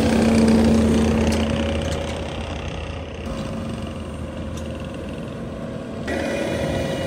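Bobcat T870 skid-steer loader's diesel engine running steadily under load while working a seeder attachment. The sound changes abruptly right at the start and again about six seconds in.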